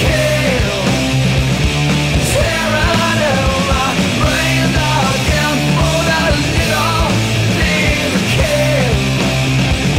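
Rock song with a sung vocal over a steady beat.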